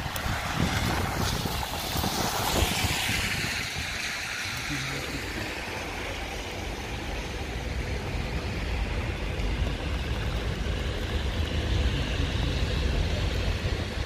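Wind buffeting the microphone with a deep rumble that grows stronger in the second half. A vehicle's tyres hiss past on a wet road, swelling and fading within the first few seconds.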